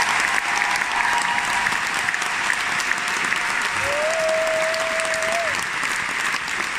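A large concert audience applauding, a dense steady patter of clapping. Midway, a single steady held note sounds for about a second and a half over the clapping.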